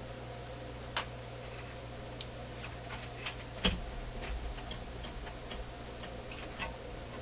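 Irregular small clicks and taps of tools and parts being handled at an electronics repair bench, with one sharper knock about three and a half seconds in, over a steady low electrical hum.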